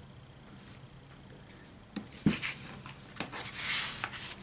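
Small parts of a model locomotive being handled on a workbench: a couple of sharp little clicks about halfway through, then a brief scratchy scraping near the end.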